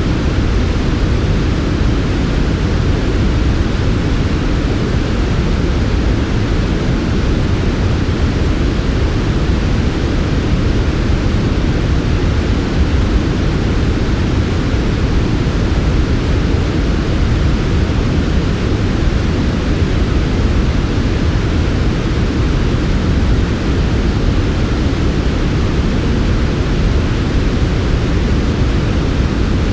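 Steady, smooth white noise for sleep, heavier in the low end than in the highs. It is an even, unbroken hiss with no changes.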